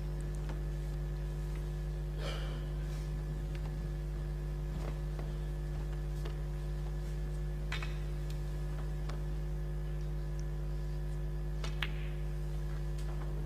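Hushed snooker arena under a steady low electrical hum, with a few faint knocks and one sharp click of snooker balls about twelve seconds in, as a red is struck and potted.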